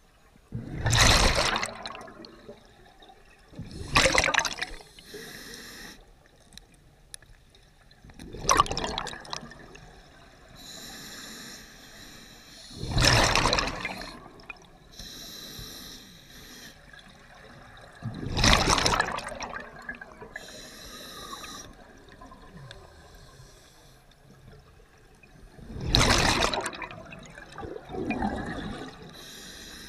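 Scuba diver breathing through an open-circuit regulator underwater: six loud rushes of exhaled bubbles, about every four to five seconds, with a quieter hiss of the regulator on each inhale in between.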